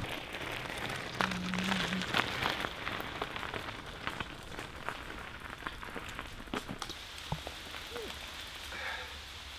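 Bicycle tyres rolling over a gravel forest path: a steady crunching crackle with many scattered small clicks.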